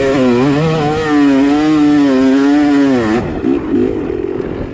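Yamaha two-stroke dirt bike engine pulling hard up a steep sand hill climb, its pitch wavering with the throttle. About three seconds in the engine note drops and cuts off as the bike comes to a stop near the top, leaving quieter, rough engine and handling noise.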